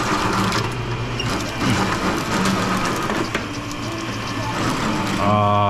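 Automatic copper wire stripping machine running: a steady motor hum with a mechanical clatter and scattered clicks as insulated wire feeds through it.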